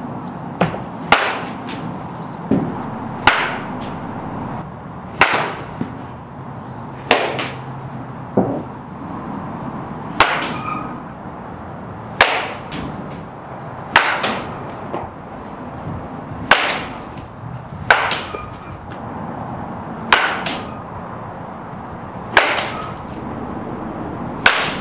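Baseball bat hitting pitched balls in a batting cage: a sharp crack about every two seconds, around a dozen in all, some with a short ringing tail.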